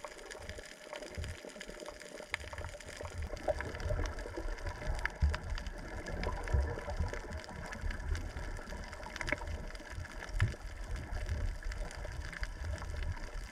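Underwater sound picked up by a submerged camera: a muffled rumble of moving water, stronger from about two seconds in, with scattered small clicks and crackles.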